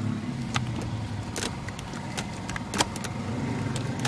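Sharp clicks and knocks of a 1990 BMW 318i's five-speed manual gear lever being worked through the gears, over the steady low hum of the engine idling.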